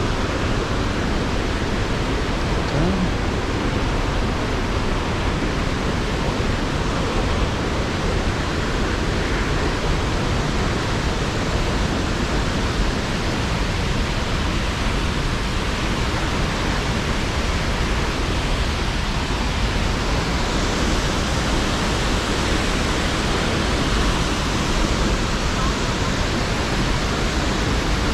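A waterfall: falling water making a loud, steady rush that does not change.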